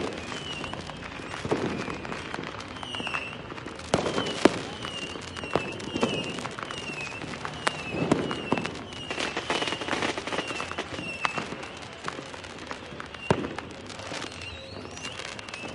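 Fireworks going off in a dense, continuous barrage: irregular bangs and pops over steady crackling, with a loud sharp bang about four seconds in and another near the end. Short high whistling chirps repeat throughout, and a rising whistle sounds shortly before the end.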